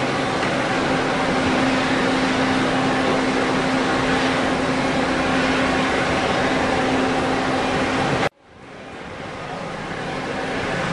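Steady mechanical hum with a constant low tone under a broad noisy rush. It cuts out abruptly about eight seconds in, then fades back up.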